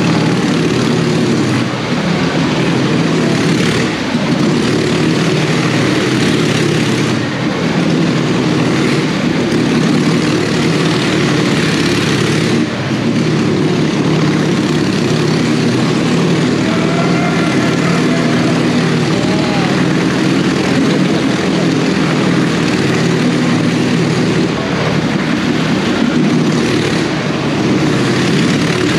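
Motorcycle engine running continuously as the bike circles the vertical wooden wall of a wall-of-death drum, its note holding fairly steady with brief small dips.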